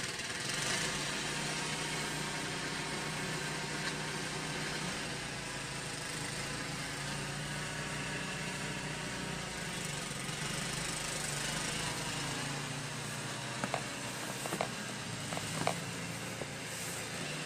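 An engine running steadily with an even, idle-like hum and a constant hiss. A few faint clicks come near the end.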